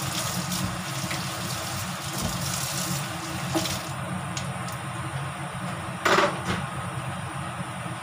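Sweet and sour sauce simmering and bubbling in a frying pan on a gas burner, over a steady low kitchen hum. About six seconds in there is a brief louder burst.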